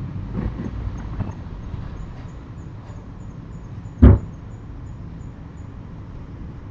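A single loud, heavy bang about four seconds in, a blow struck against something solid, over a low steady rumble. A few softer knocks come in the first second or so.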